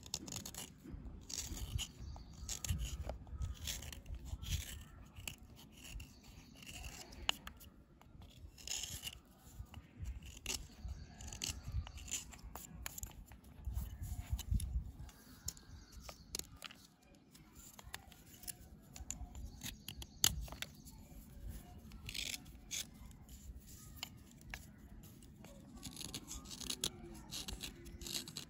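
A knife blade scraping and shaving a dry, crumbly bar in a run of short, rough strokes, with a few sharper clicks.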